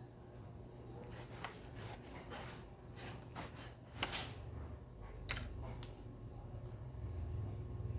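Scattered small clicks, scrapes and rustles of blender parts and tools being handled, the sharpest click about four seconds in, over a steady low hum.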